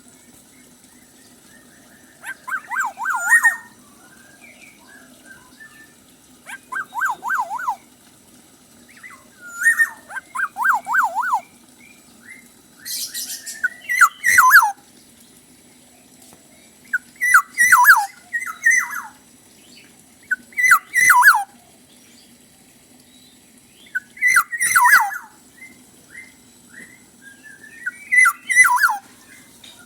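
Black-naped oriole singing in short phrases every few seconds. Some phrases are a quick whistle wavering up and down about five times. Others are sharp downward-sliding whistles mixed with high chatter, the bird in full song ('gacor') with plenty of fills.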